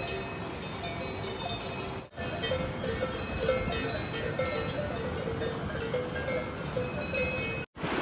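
Many cowbells on grazing cows clanking irregularly at different pitches, over the steady rush of a glacial river. The sound drops out briefly about two seconds in and again near the end, after which the river's rush is heard alone.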